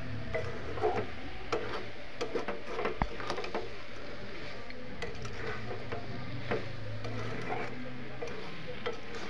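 A metal spatula stirs thick jujube pickle in a metal karahi, scraping and clicking irregularly against the pan, with the sharpest knock about three seconds in. A steady low hum runs underneath.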